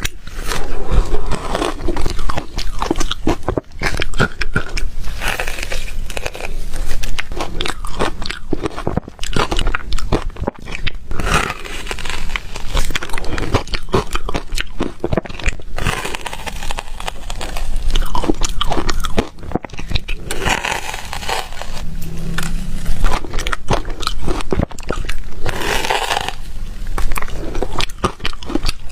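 A person biting and chewing ice: a loud, dense run of crunches and cracks with short pauses between bites.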